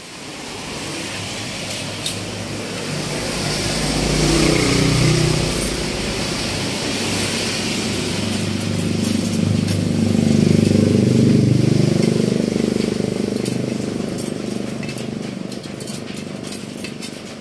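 A motor vehicle engine running close by, swelling twice, around five seconds in and again around eleven seconds, then easing off.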